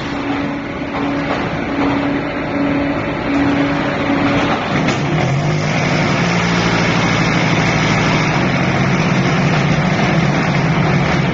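QT10-15D automatic concrete hollow block making machine running with dense, loud mechanical noise. A hum pulses on and off about twice a second for the first four seconds or so, then a steadier, lower hum takes over from about five seconds in.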